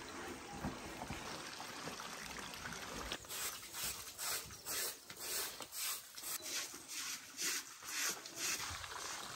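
A hand brush scrubbing a wet carpet in regular short strokes, about two to three a second, starting about three seconds in, with faint trickling water.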